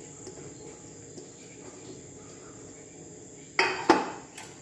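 Soft scraping as ground fresh coconut is pushed off a steel plate into a kadhai, then the steel plate is set down with two sharp clanks near the end. A steady high-pitched whine runs underneath.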